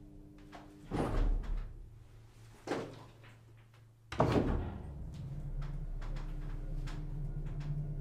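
S:t Eriks Hiss elevator from the 1970s: a door shuts with a bang about a second in, a smaller knock follows, then a loud clunk just after the floor button is pressed as the drive starts. The car then runs with a steady low motor hum.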